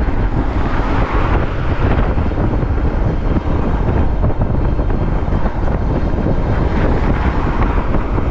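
Wind buffeting the microphone on an electric bike ridden at about 27 mph on throttle, a steady gusting rumble.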